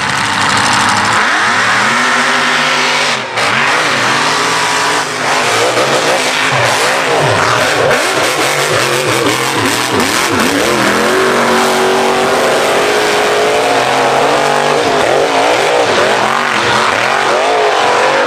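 Mega mud truck's engine revving hard, its pitch rising and falling again and again as the throttle is worked around the dirt course.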